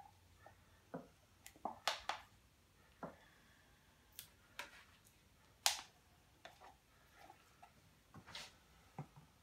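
Faint, irregular small clicks and scrapes from handling a wooden stir stick and a plastic resin cup during a resin pour, with the loudest clicks about two seconds in and just before six seconds.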